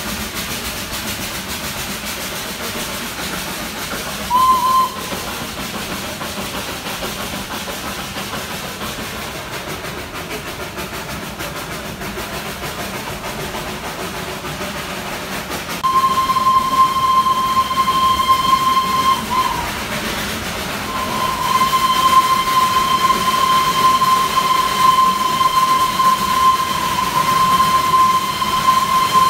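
Darjeeling Himalayan Railway steam locomotive whistling while the toy train runs. A short toot about four seconds in, then two long steady blasts over the second half with a brief break between them, over the steady running noise of the train.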